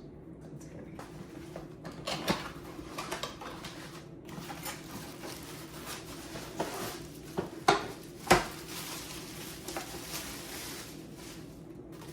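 Kitchen clatter: scattered knocks and clinks of cookware and utensils being handled, the sharpest about eight seconds in, over a steady low hum.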